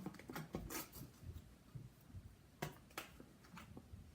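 Light clicks and taps of small plastic toy pods and packaging being handled and sorted. A quick cluster of ticks comes at the start, then two sharper clicks a little past halfway.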